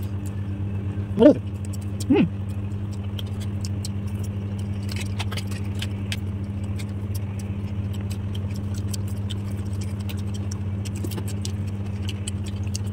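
Eating at a table: a fork and a spoon clicking and scraping against ceramic plate and bowl, with noodle-slurping and chewing, over a steady low hum. Two short vocal sounds come about one and two seconds in.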